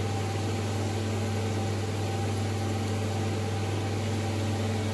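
Steady low hum with an even hiss over it.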